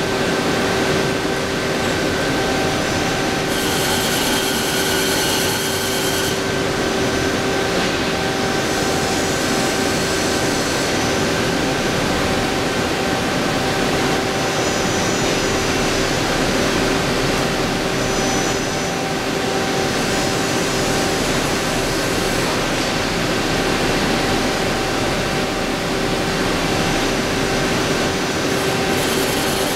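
HONOR Seiki VL-66A vertical turning lathe turning a brake drum: a steady machining noise carrying a constant tone. A higher whine comes in about four seconds in for a couple of seconds, and again briefly near nineteen seconds.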